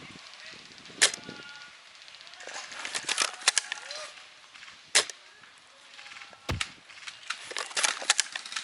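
Scattered sharp snaps of airsoft gunfire: single shots and short clusters a second or two apart, with a dull thump about six and a half seconds in.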